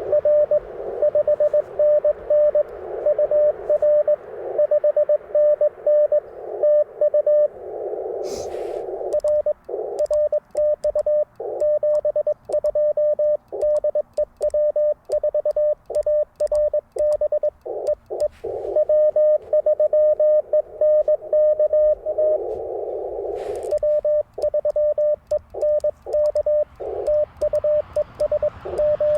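Morse code (CW) from an Icom IC-705 transceiver: a single tone a little under 600 Hz keyed into dots and dashes throughout. At times it comes through a narrow band of receiver hiss, which are stations being copied. At other times it is clean with silent gaps between elements, which is the operator's own keying sidetone. Two sharp clicks sound, about a third of the way in and near the end.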